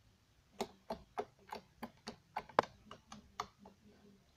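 Clicky slime being poked and pressed with fingertips, giving a run of sharp clicks about three a second that stop shortly before the end.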